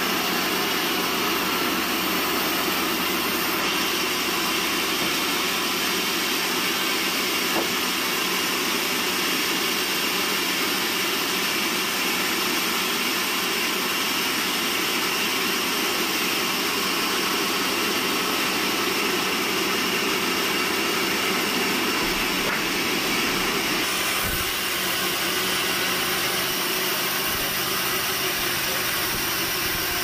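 Large band sawmill running steadily, its blade cutting through a log as it is pushed along the carriage.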